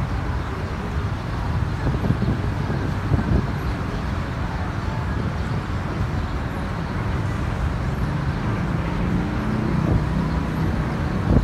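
Steady low rumble of a Boeing 737-800 jet airliner's CFM56 turbofan engines in flight as it approaches, growing slightly louder near the end.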